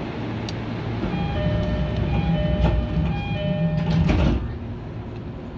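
E231 series commuter train's door-closing chime, a two-note chime repeated about three times, ending with a sharp thud as the sliding doors shut about four seconds in.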